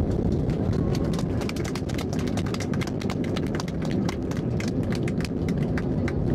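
Steady low cabin rumble of an Airbus A320 rolling down the runway after touchdown. Through most of it runs a rapid, irregular series of sharp clicks and rattles.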